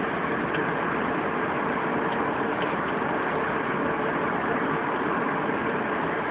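Airliner cabin noise in flight: a steady, even rush of engine and airflow sound heard from inside the cabin, with a faint steady hum under it.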